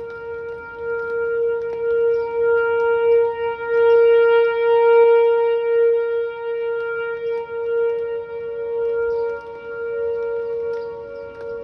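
Whelen 4004 electronic tornado siren sounding one steady, unwavering tone, swelling louder about four to five seconds in and then fading as its rotating head turns.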